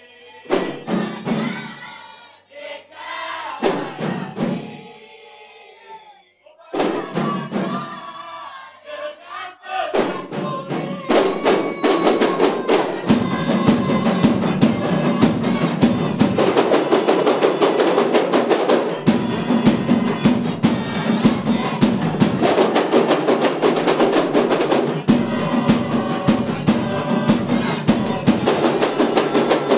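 A kompang troupe performing: a group of voices chants for about the first ten seconds, broken by pauses and a few drum strokes. From about eleven seconds in, many kompang hand drums are struck together in a fast, dense rhythm, with a large bass drum beating among them.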